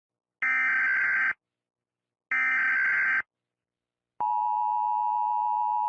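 Emergency Alert System tones: two bursts of digital SAME header data, each about a second long, then the steady two-tone EAS attention signal starting about four seconds in.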